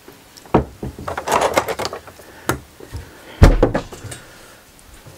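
A few hard knocks and a short clatter of wood and tools being handled on a workbench, the loudest knock about three and a half seconds in.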